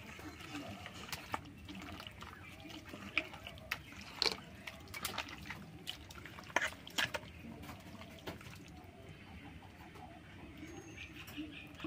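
Soft, irregular wet squelches and clicks of bare hands kneading mutton pieces in spice paste in a steel bowl. Near the end, mustard oil is poured into the bowl.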